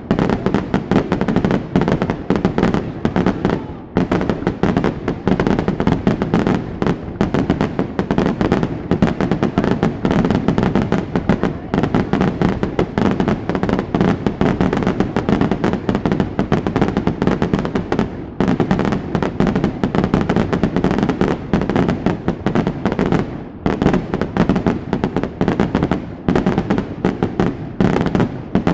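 Fireworks display: a dense, continuous barrage of bangs and crackles, many per second and overlapping, easing only for a moment now and then.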